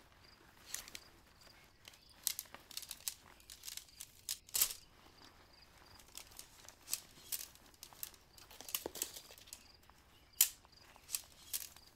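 Tent fabric and its bag rustling and crinkling as the tent is unpacked and handled, in irregular bursts with a few sharper crackles, the loudest about four and a half seconds in and about ten and a half seconds in.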